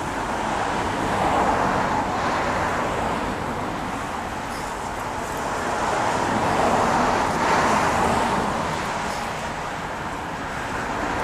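Road traffic going by: a steady hiss of tyres that swells and fades as cars pass, loudest about a second in and again around seven seconds in.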